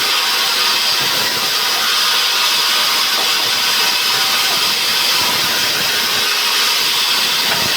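Sawmill saw cutting a debarked pine log, a loud, even hiss with a faint steady hum beneath it and no pauses.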